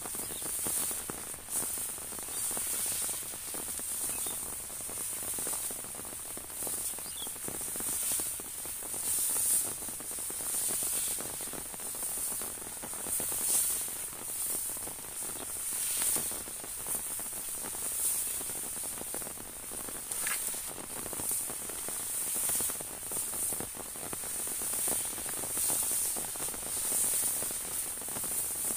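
Light rain pattering on an umbrella and the rice field around it: a steady high hiss that swells and fades.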